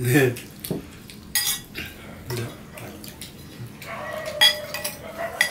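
Plates, bowls and a glass clinking and knocking on a dining table while rice is mixed and eaten by hand, in a handful of separate sharp clinks; the loudest comes about four and a half seconds in.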